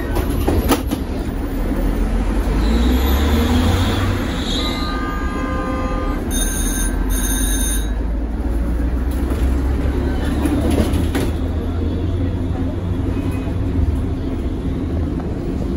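Tatra KT4D articulated tram running, heard on board as a steady low rumble of motors and wheels on rail. A brief wheel squeal comes a few seconds in, and two short high beeps sound near the middle.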